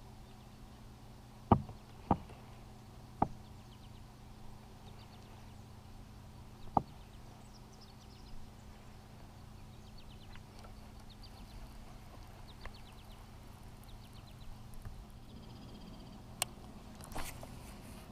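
A handful of sharp, isolated knocks and clicks from fishing tackle being handled in a plastic kayak, the loudest about a second and a half in. Faint high bird trills come and go behind them.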